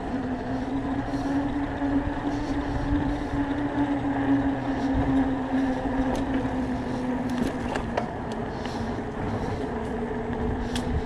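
Electric bike on the move: a steady hum that drifts slightly in pitch, over wind and rolling noise, with a few sharp clicks in the second half.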